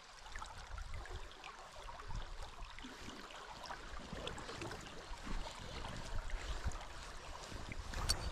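Fast-flowing river rushing steadily, with wind buffeting the microphone. A couple of sharp clicks near the end.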